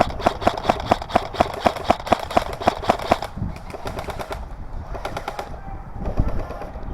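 Airsoft gun firing full-auto: a long burst at a slow, even rate of about five shots a second, then shorter bursts.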